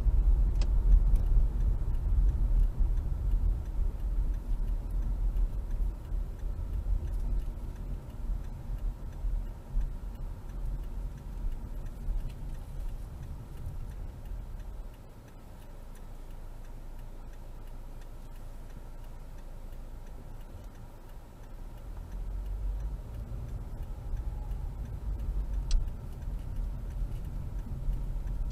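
Car cabin sound: tyre and engine rumble while driving, dropping to a quieter steady idle about halfway through as the car waits at the intersection, then rising again as it pulls away. A turn signal ticks throughout.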